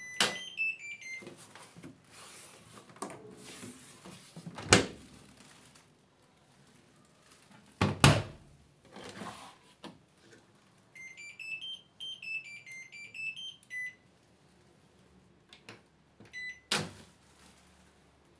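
TCL front-loading washing machine's control panel playing electronic beep tunes: a short run of stepped tones at the start and a longer rising-and-falling tune about eleven seconds in, with a single beep near the end. Between them come a few loud sharp knocks and clacks from the machine's plastic parts and detergent drawer being handled.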